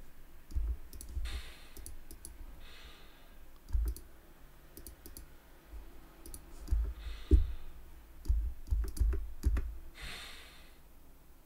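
Computer mouse clicks and keyboard taps, irregular and close to the microphone, with a few dull desk thumps and soft breaths between them.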